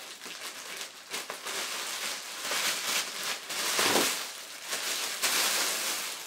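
Plastic courier mailer bag being torn open by hand: a long run of crinkling, rustling and tearing plastic, loudest about four seconds in.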